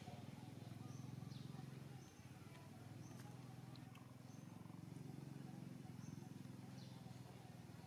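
Faint low steady hum with short high-pitched chirps every second or two.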